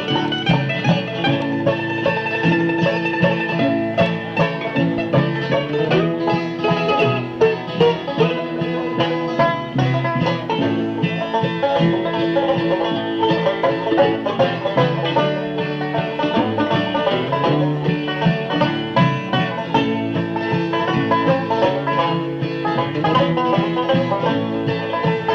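Live bluegrass band of banjo, guitar, upright bass and fiddle playing an instrumental break between sung verses, with the banjo prominent.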